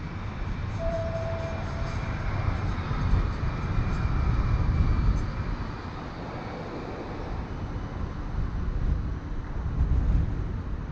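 KC streetcar, an electric tram, passing close by with a low rumble that swells near the middle and a faint steady high whine, over city traffic noise. A short steady tone sounds about a second in.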